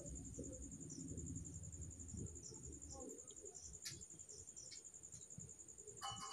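Faint steady high trill of a cricket chirping continuously in the background, over low room noise with a few soft clicks.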